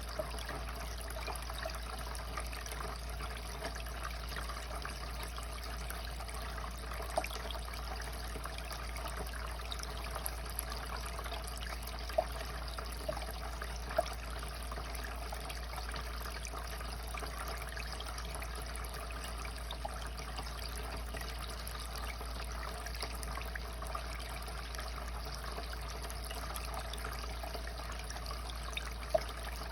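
Fountain water splashing steadily, a continuous even splash with a few brief sharp ticks standing out.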